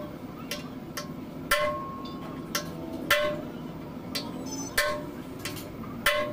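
Sledgehammer striking the handle of a ring spanner fitted on a nut of a truck axle housing: four sharp metallic clanks about one and a half seconds apart, each ringing briefly, with fainter clicks in between.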